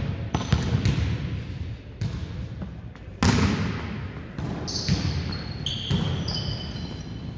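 Indoor volleyball play in a gym: repeated sharp knocks of the ball being hit and bouncing, with a sudden loud burst about three seconds in. High squeaks, typical of sneakers on the court floor, come in the second half.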